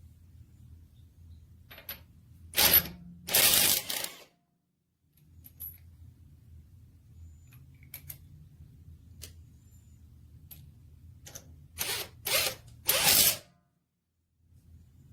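Cordless impact wrench firing in short bursts: two a few seconds in and three more near the end, over a low hum.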